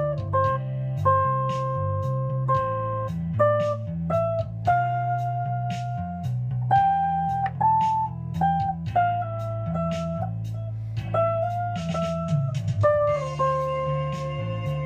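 Stratocaster-style electric guitar improvising a slow melody of single picked notes, each held and left ringing.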